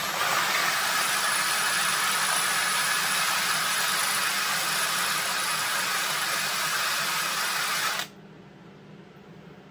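Kobalt cordless drill boring into a cast-iron pulley, the motor and bit running at a steady pitch, then stopping abruptly about eight seconds in.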